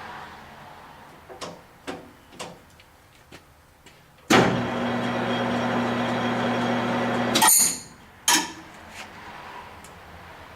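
Clausing Nardini MS 1432E engine lathe: a few light clicks, then the spindle motor starts about four seconds in and runs steadily with a hum for about three seconds. It stops suddenly with a clunk as the brake is applied, followed by another knock about a second later.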